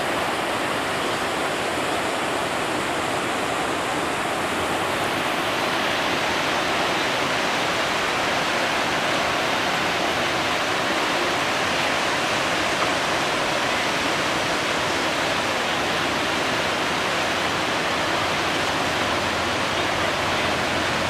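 Steady rushing of whitewater rapids, an even roar of churning river water.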